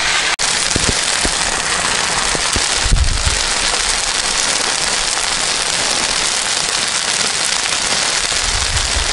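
Plov sizzling and crackling in a cast-iron kazan as its last liquid boils off into the rice. The sound is a steady, even crackle, with a brief break just after it starts and a low thump about three seconds in.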